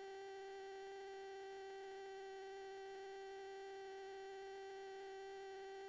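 Faint, steady electronic tone with a stack of even overtones, unchanging throughout, with no other sound.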